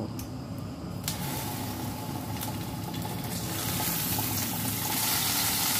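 Cubes of tofu sizzling in hot oil in a frying pan as they are dropped in. The sizzle starts suddenly about a second in and grows louder as more pieces go into the pan.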